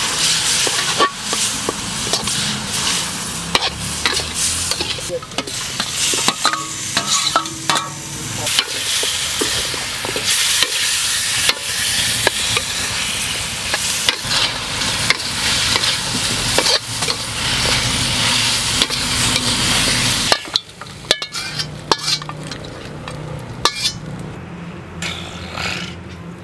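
Chicken stir-frying in a hot wok: a steady loud sizzle with a metal spatula scraping and knocking against the wok. About twenty seconds in the sizzle drops away suddenly, leaving only a few light clicks.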